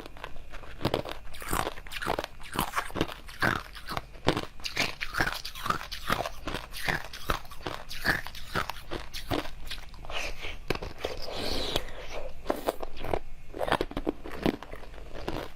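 Close-miked eating sounds: frozen food being bitten and chewed, with irregular crunches and crackles alongside wetter squishing of jelly.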